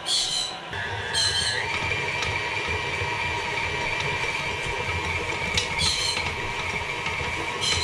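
KitchenAid stand mixer running with its dough hook, kneading a stiff, dry whole-wheat dough; its steady motor whine steps up in pitch about a second and a half in. A few short high chirps or squeaks sound over it.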